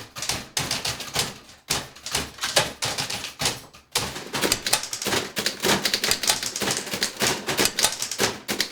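Several manual typewriters being typed together in a rhythm as percussion: dense, irregular clacking of keys striking. It is sparser at first, dips briefly just before the middle, then picks up into busier, louder clatter.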